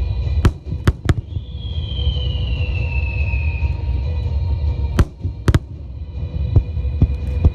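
Starmine aerial fireworks bursting in sharp bangs, three loud ones near the start and two more about five seconds in, followed by smaller pops, over a steady low rumble. A falling whistling tone and music with held notes sound beneath.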